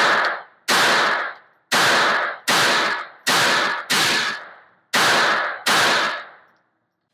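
Beretta 21A Bobcat .22 LR pocket pistol fired eight times in steady succession, a little over one shot a second, each report ringing briefly in an indoor shooting range.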